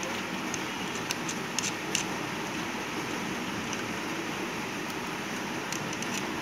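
Steady mechanical hum with a few small sharp clicks about one to two seconds in and again near the end, as a cable is fastened to the inverter's red screw terminal.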